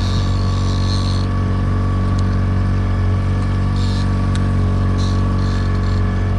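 Evinrude outboard motor running steadily at trolling speed, with an even low drone. A thin high whine is laid over it and stops about a second in, and there are a few faint ticks later on.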